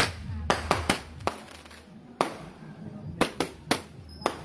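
Roman candle fireworks firing shot after shot: about ten sharp bangs and pops, irregularly spaced, several in quick succession.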